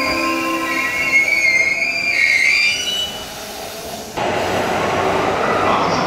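Yamanote Line E235-series train's Mitsubishi full-SiC VVVF inverter whining in several shifting, gliding tones as the train moves along the platform. It fades after about three seconds and breaks off abruptly about four seconds in, giving way to steady station-platform noise.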